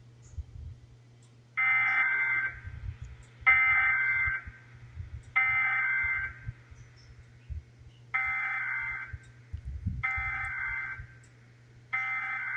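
Emergency Alert System SAME header: six digital data bursts, each about a second long, in two groups of three, encoding the alert that opens a Required Monthly Test.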